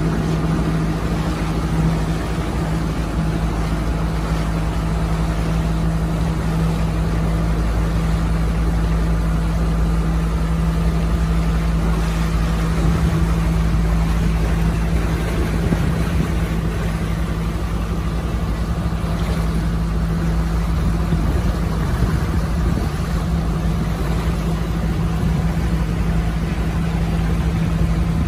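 Passenger launch's inboard engine running steadily while the boat cruises, a constant low drone with a steady hum over a rumble.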